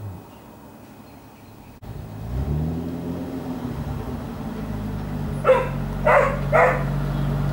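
Engine of an Audi-powered Mini running as the car drives up. It picks up with a brief rise in revs about two seconds in, then holds a low steady note. A dog barks three times near the end.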